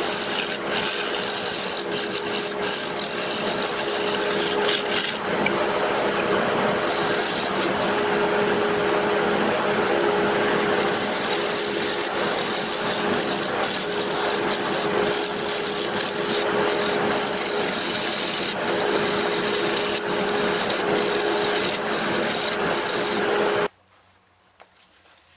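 Turning tool cutting into an Australian burl spinning on a wood lathe, hollowing its face: a steady scraping rasp over the lathe's constant hum, which cuts off suddenly near the end.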